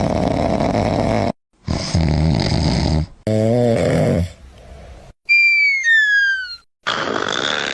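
A person snoring loudly in a run of separate snores with short silent breaks between them, some rough and rattling and one with a low droning pitch. About halfway through come two falling whistle-like tones.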